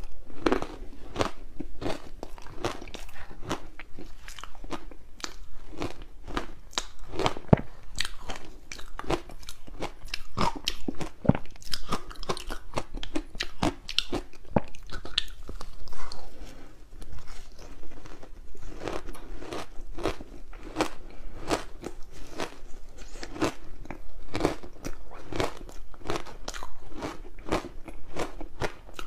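Close-miked biting and chewing of soft, sticky frozen green barley ice balls: a dense run of crunches and crackles of ice between the teeth, several strokes a second, with a quieter stretch about halfway through.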